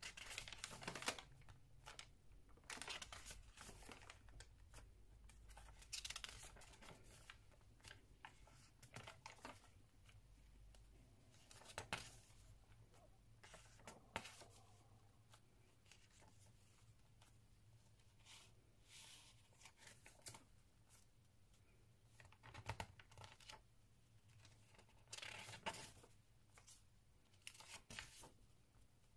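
Faint rustling and swishing of paper pages and tucked-in paper inserts in a handmade junk journal being turned by hand, one page every couple of seconds.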